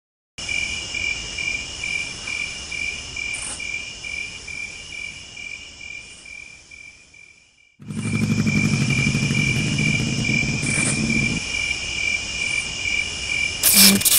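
Crickets chirping in a steady rhythm of about three chirps a second. After a brief break, a low hum runs under them for a few seconds, and a loud rushing noise comes in near the end.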